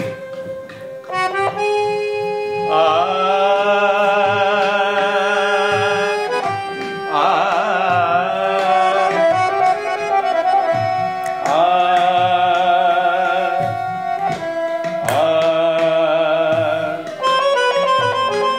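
Improvised music on accordion with light hand-drum taps underneath: long held chords in phrases of two to three seconds, with a wavering melody line over them.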